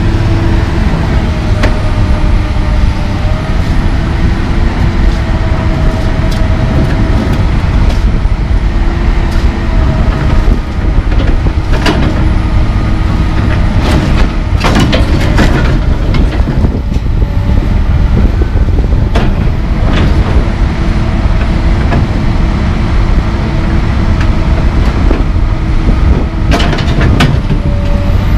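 Komatsu PC220LC track excavator's diesel engine running under load, with a hydraulic whine that shifts in pitch as the boom and bucket move. Several sharp metal knocks and clanks cut in partway through and again near the end.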